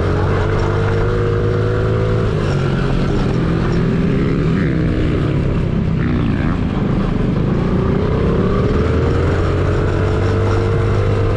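Honda CRF50's small four-stroke single-cylinder engine running under way, its pitch dropping about a third of the way in and climbing again through the second half as the throttle is worked.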